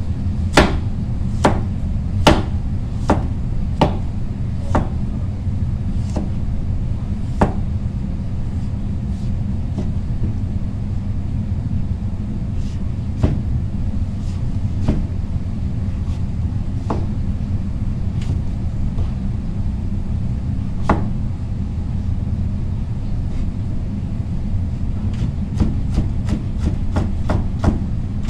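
Large kitchen knife cutting through raw squash and knocking on the cutting board: spaced strikes about once a second at first, sparser in the middle, then a fast run of chopping near the end as the slices are cut into thin strips. A steady low rumble runs underneath.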